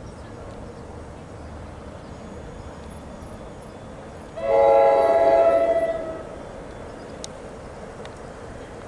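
Passing train's horn sounding one blast of about two seconds, several tones together, about halfway through.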